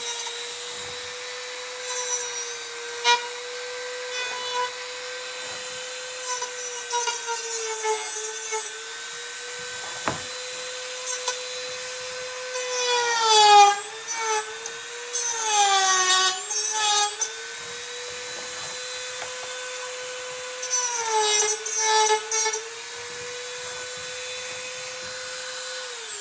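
Dremel rotary tool running at high speed with a steady whine, dipping in pitch and growling each time it is pressed into the work to grind off leftover plastic. The heaviest loading comes several times past the middle.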